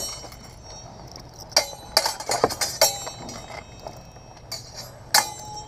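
Steel longswords clashing in sparring: sharp, ringing blade-on-blade strikes, one at the start, a quick cluster of four or five in the middle and another near the end.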